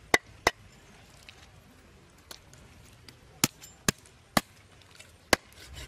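Knife chopping through raw duck meat on a chopping board: six sharp chops, two in quick succession at the start, then four more about half a second to a second apart from about three and a half seconds in.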